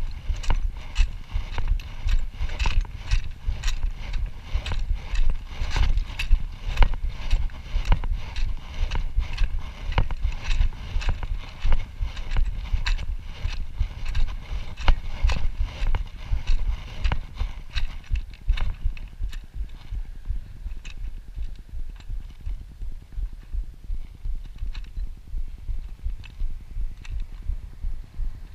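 Wind rumbling on the microphone of a GoPro riding on a motorcycle, with a fast, irregular run of knocks and rattles from the ride. The knocks thin out and the sound eases somewhat in the second half.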